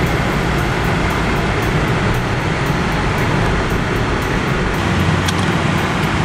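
Car interior noise while driving: the engine and tyres give a steady low rumble under a hiss of road and wind noise.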